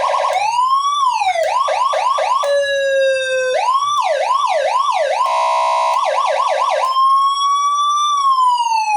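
A 12-tone electronic siren module sounds loudly through a horn speaker, switching between siren tones every second or so: a fast warble, rising and falling wail sweeps, quick repeated yelps, then a slow rise and fall. It cuts off suddenly near the end.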